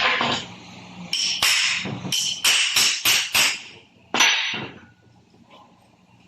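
Hammer striking metal gearbox parts, a run of sharp ringing blows about three a second, with a final hard blow about four seconds in.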